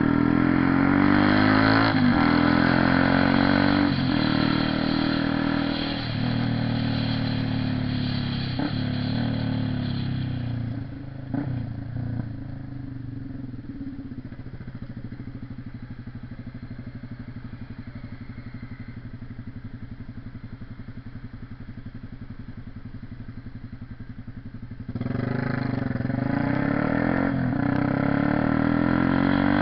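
Honda CB 300R single-cylinder motorcycle engine riding with its pitch rising and falling, then settling to a steady idle about twelve seconds in. It pulls away again near the end.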